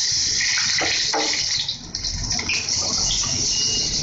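Hot ghee sizzling with a steady loud hiss as papdi (crisp fried dough wafers) fry in a pan, with a couple of short knocks from the tongs about a second in.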